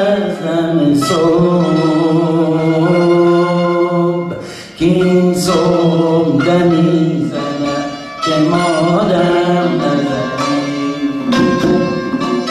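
A male voice sings long, held, ornamented phrases of Persian classical vocal music in dastgah Segah, accompanied by santur and tonbak. The phrases break off briefly twice, and struck santur notes ring between them.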